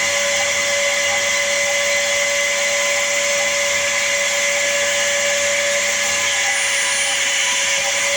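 An electric power tool running steadily: a constant whine over a steady rush, with no pauses. It is used to round off the knife's handle.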